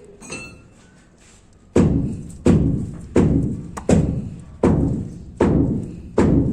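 Background music with a slow, steady beat of heavy thumps, about three every two seconds, coming in about two seconds in after a quiet stretch.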